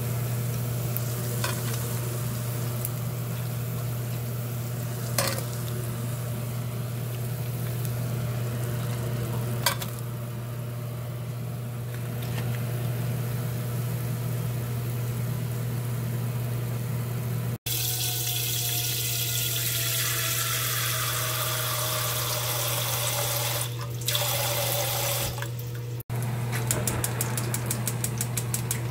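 Battered pork pieces sizzling in hot oil in a pan, with sharp clinks of metal tongs against the pan and plate, over a steady low hum. Then a steady rush of running water with a slowly falling tone, and near the end a rapid even ticking, several ticks a second, beside a pot of water set to boil on the stove.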